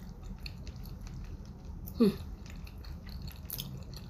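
Sushi being chewed with the mouth closed: soft, wet smacking and small clicks. About two seconds in comes a brief vocal sound that falls in pitch.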